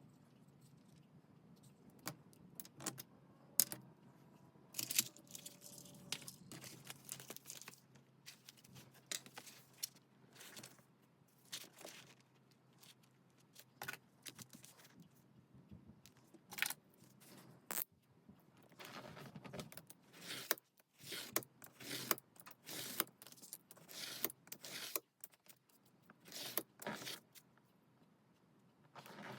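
Paper and small stationery pieces being handled at a desk for a junk journal: irregular rustles, light taps and small clicks.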